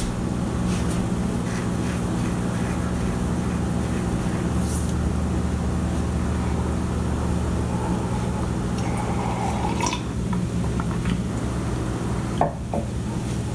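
A steady low machine hum with a few light taps, and one sharper knock near the end.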